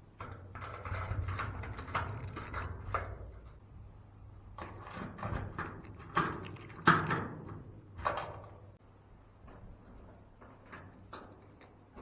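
Irregular handling noises: clicks, knocks and scrapes in two busy spells, with the sharpest knock about seven seconds in and quieter handling after.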